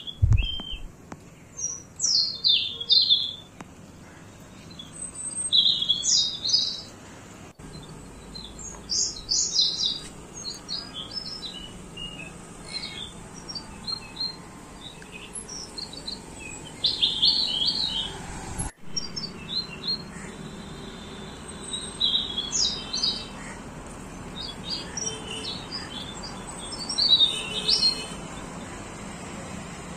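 Small birds chirping outdoors: many short, high chirps in scattered clusters, some louder and nearer than others.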